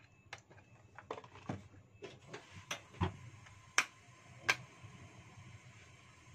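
Kitchen handling noises: light clicks and knocks as a plastic cooking-oil bottle is handled and put down beside the wok, with a dull knock about three seconds in and then two sharp clicks.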